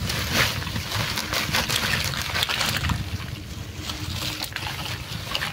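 Tamarind pods poured out of a woven plastic sack onto a plastic sheet and spread by hand: crinkling of the plastic sack and sheet and the dry rattle of pods tumbling against each other.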